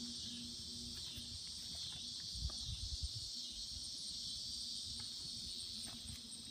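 Steady high-pitched chorus of insects, crickets or similar, with a few soft low thumps a few seconds in.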